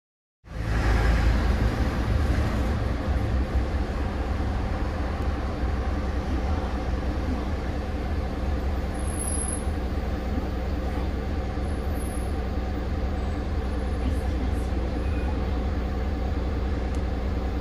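Heuliez GX 137 city bus's Iveco Tector 7 six-cylinder diesel engine running with a steady low drone.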